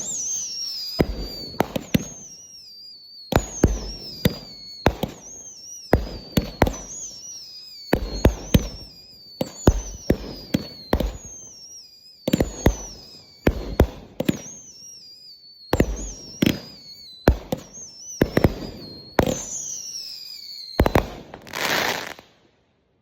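Fireworks going off in quick succession: sharp bangs about every second, many with a high whistle that falls in pitch. A longer hissing burst comes near the end, then it all stops abruptly.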